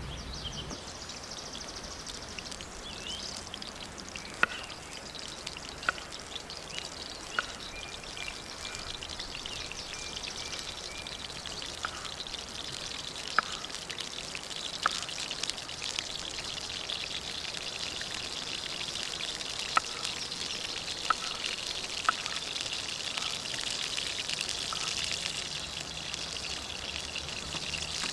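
Steady rushing hiss of flowing river water, broken by about nine sharp single pops scattered through it, like a campfire crackling.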